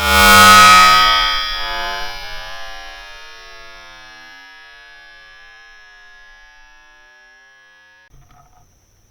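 A single loud, ringing musical chord that swells in, then slowly fades over about eight seconds before cutting off suddenly, with a brief faint rustle just after.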